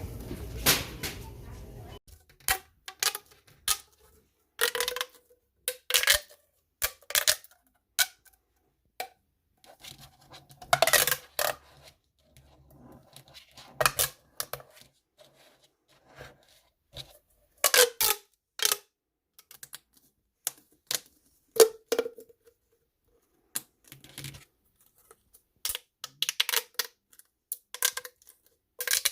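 Plastic fidget toys being handled: a string of short clicks and crackles with pauses between them, loudest around the middle of the stretch.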